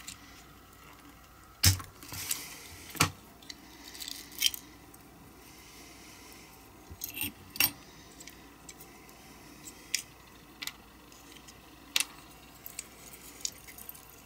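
Small diecast metal parts and tools clicking and clinking as a toy car's body and baseplate are handled and set down: about a dozen sharp, irregular clicks, the loudest near two seconds in.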